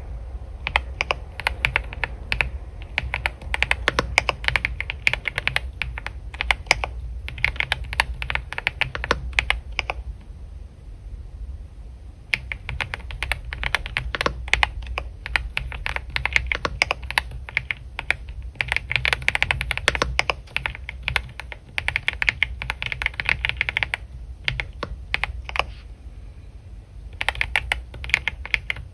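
Computer keyboard typing in quick runs of keystrokes, pausing briefly twice, over a steady low hum.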